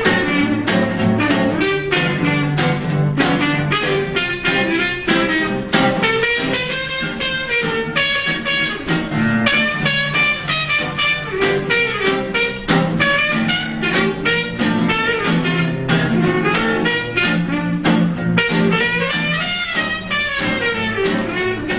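Background music: an instrumental track with a steady beat.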